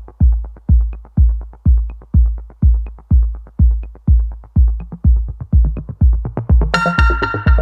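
Electronic dance music with a steady kick drum at about two beats a second. A bright cymbal crash and synth chords come in near the end.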